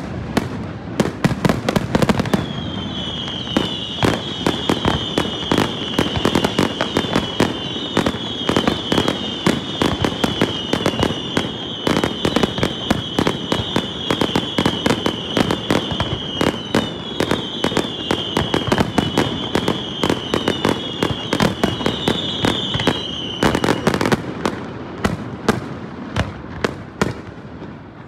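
Fireworks display: rapid, dense crackling and popping of bursting shells. From about two seconds in until a few seconds before the end, a long run of high whistles plays over it, each dipping slightly in pitch. Deeper booms come at the start and again near the end.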